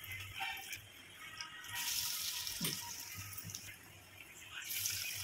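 Bombay duck fish patties sizzling and bubbling in hot oil in a wok. The sizzle swells about two seconds in and again near the end.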